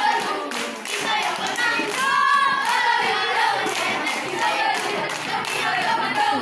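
A group of young scouts chanting and singing a yel-yel, a scout cheer, in unison, with hand claps through it.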